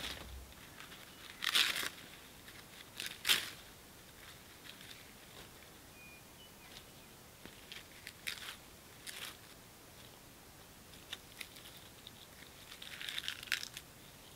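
Dry kindling being torn and broken by hand to build a campfire: separate bursts of tearing and crunching a second or more apart, with a few short sharp snaps.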